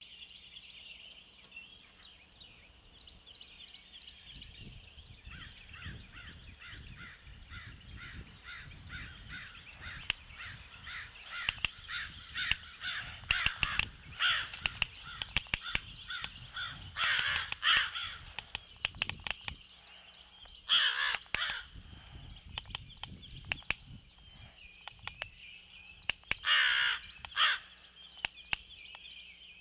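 Crows cawing: a quick run of short calls about twice a second, then louder, harsher caws near the middle and end, the calls of crows mobbing the great horned owl, which spreads its wings defensively over its owlet.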